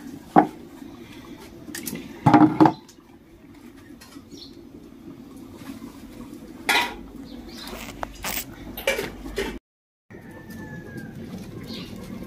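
A few separate sharp knocks and clatters of wood and household things being handled on a hard floor as a low wooden stool is set down and sat on. The loudest is a double knock about two seconds in. A short falling bird chirp comes near the end.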